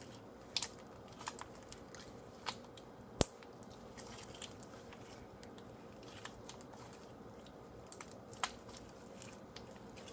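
Homemade borax slime being worked by hand in borax solution: scattered soft squishes and small clicks, with one sharp click about three seconds in.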